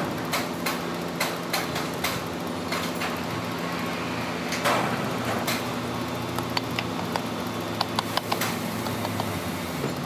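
Metal parts of a cycloidal pinwheel reducer clinking and knocking as they are fitted onto an electric motor, over a steady hum of workshop machinery. Sharp clicks come in a cluster about eight seconds in.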